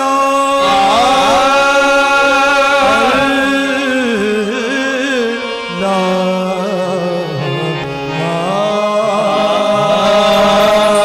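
Qawwali singing: the lead vocalist holds long notes that slide and waver in ornaments, over harmonium accompaniment.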